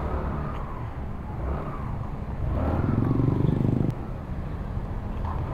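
Yamaha Mio MXi 125 scooter's engine running at low speed as it pulls out into traffic, with a louder engine note rising for about a second and a half midway, then cutting back.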